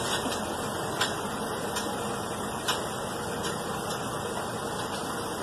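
Wheel loader's engine running steadily, with a few faint knocks.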